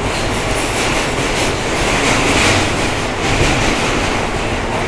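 A New York City subway car running on the rails, heard from inside the car: a steady rumble and rail clatter that grows louder and harsher for a stretch in the middle.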